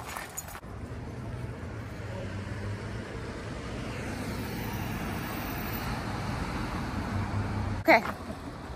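Motor traffic on the adjacent road, a steady low hum that builds slowly, with one short, sharp sound near the end.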